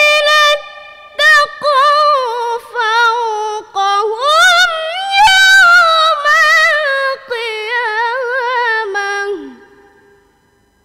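A girl's voice in melodic Qur'an recitation (tilawah), long held and ornamented notes with vibrato in several phrases, the pitch climbing about four seconds in and the last note falling away near the end.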